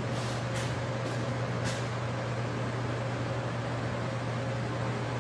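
Steady low hum of air-conditioning machinery, with a faint higher steady tone above it. Four faint, short soft swishes come in the first two seconds.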